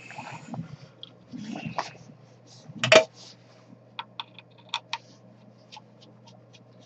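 Scattered sharp plastic clicks and taps as freshly 3D-printed handle parts on the printer's perforated build plate are handled and pried at, with one louder knock about three seconds in. A faint low steady hum underneath.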